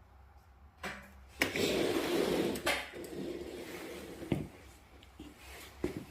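Handling noises: a sharp knock, then about a second of scraping and rustling, then a few lighter knocks.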